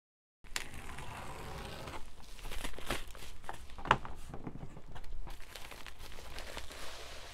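Plastic bubble mailer crinkling and rustling as it is cut open and its flap pulled back by hand, with scattered sharp crackles, the loudest about four seconds in.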